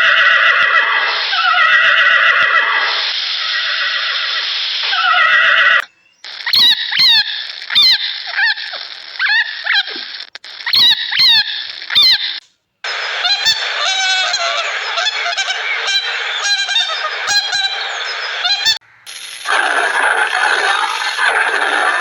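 Geese honking, in a string of short animal-call clips cut one after another, each clip cut off abruptly.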